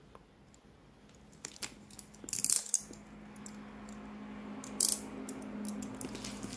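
Light clicks and a few short scratchy rustles from handling a cardboard shipping box and a tool at its label, over a faint steady hum.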